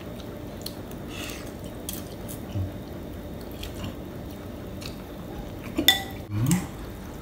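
Eating noodle soup: a metal spoon and fork clink against the ceramic bowl, with soft slurps of noodles. A louder pair of clinks comes near the end, followed by a short rising hum.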